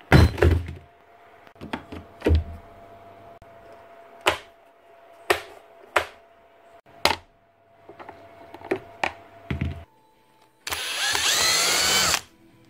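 A Bosch demolition hammer's plastic housing being handled and set down on a workbench: a string of sharp knocks and clunks. Then a power screwdriver whirs for about a second and a half near the end, undoing a housing screw.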